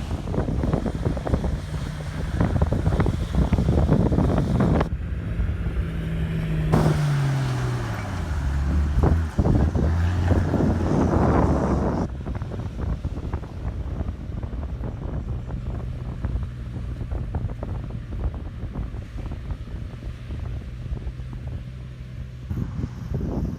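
A 4WD's engine running while driving, its pitch dropping about a third of the way in as the revs fall, then holding steady, with wind buffeting the microphone.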